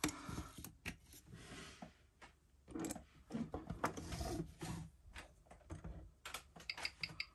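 A mechanical wristwatch being clamped into a timegrapher's microphone stand, making clicks, knocks and rustles of handling. About 6.7 seconds in, the watch's ticking starts through the timegrapher's microphone: a fast, even ticking of about six ticks a second as the balance beats.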